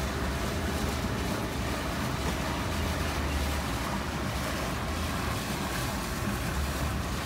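Steady rush of water and wind on the microphone from a boat moving along a canal, under the low, even drone of a passing twin-outboard motorboat.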